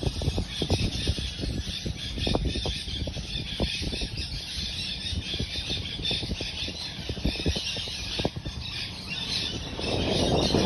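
Birds squawking and squealing over a steady high-pitched hiss, with many short low knocks throughout; a louder rushing noise builds near the end.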